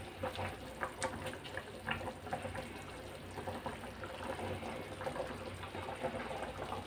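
Thick curry gravy bubbling at a simmer in a metal kadhai, with irregular small pops and soft plops as fried potato koftas are set into it by hand.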